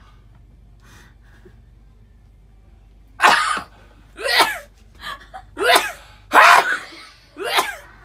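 A man's exaggerated, vocal sneeze brought on by a twisted tissue in his nostril: after about three seconds of quiet, a run of loud gasping cries builds up and ends in the sneeze near the end.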